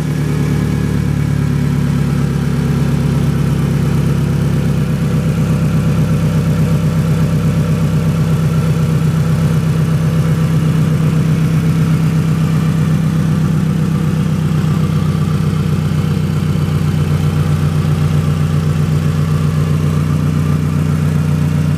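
Toyota 2AZ-FE 2.4-litre 16-valve inline-four engine idling steadily, at an even pitch and level.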